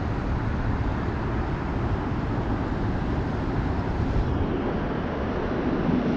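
Steady low-rumbling outdoor background noise with no distinct events.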